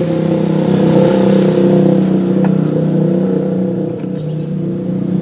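An engine running steadily, an even hum with a slight drift in pitch that eases off a little after about four seconds. A faint click comes about two and a half seconds in.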